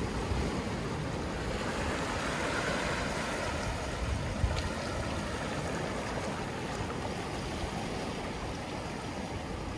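Small waves washing in over lava rocks and sand at the water's edge, over a steady low rumble of surf, with a wash swelling about two to three seconds in. A single sharp click about four and a half seconds in.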